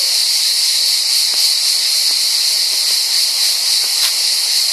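A steady, loud, high-pitched hiss that holds evenly throughout with no breaks.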